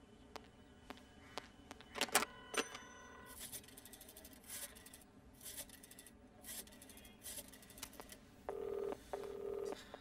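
Telephone handset lifted with a few sharp clicks, then a number dialled in five runs of rapid clicks about a second apart. Near the end, the earpiece gives a double ring-back tone: two short hums, meaning the called line is ringing.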